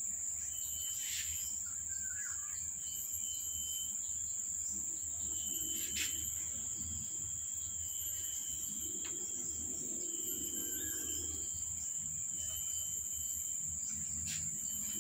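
Steady high-pitched insect drone, with fainter chirring that comes and goes over it and a few faint clicks.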